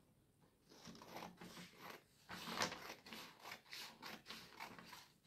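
Scissors cutting through a sheet of green paper along a fold: a run of short snips, two or three a second, starting about a second in.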